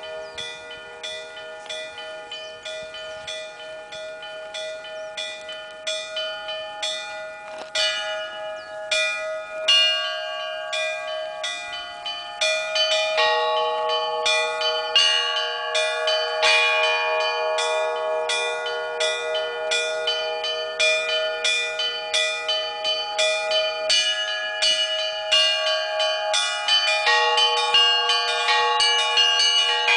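Russian Orthodox belfry bells rung by hand in a traditional zvon: small high bells struck in a rapid pattern of about three or four strokes a second over ringing larger bells. The peal grows louder and fuller about a dozen seconds in as more bells join.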